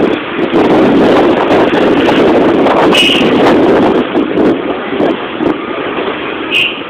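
Steady rumble of a moving road vehicle with wind buffeting the microphone. Two short high chirps come about three seconds in and again near the end.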